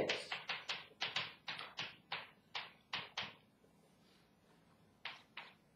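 Chalk writing on a blackboard: a quick run of short taps and scrapes, about four a second for some three seconds, then a pause and two more strokes near the end.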